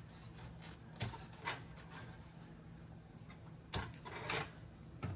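A few light clicks and knocks, about four, from hands and tools working parts inside an open desktop computer case, over a faint steady low hum.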